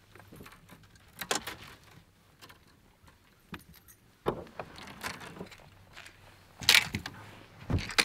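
Irregular knocks, clicks and rattles of fishing rods, reels and lures being handled on a bass boat's deck, with the loudest clatters near the end.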